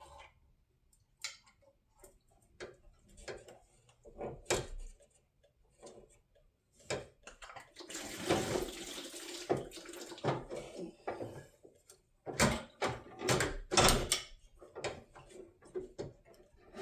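Parts being handled during a radiator and hose job: a series of scattered clicks and knocks, with about two seconds of rushing, hissing noise about eight seconds in and a cluster of louder knocks near the end.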